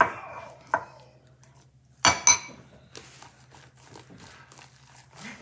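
A utensil knocking and scraping against a mixing bowl as slime is stirred. There are a few sharp clinks, the loudest about two seconds in and ringing briefly, with lighter ticks after it.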